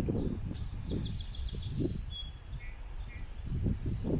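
Small birds chirping, with a quick run of high notes about a second in. Wind buffets the microphone underneath in uneven low rumbles.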